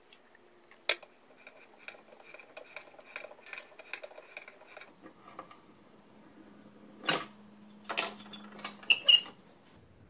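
A round die in a die stock cutting threads on a steel rod held in a bench vise: a run of regular metallic clicks, about three a second, as the die is turned, followed by several loud metal clanks near the end.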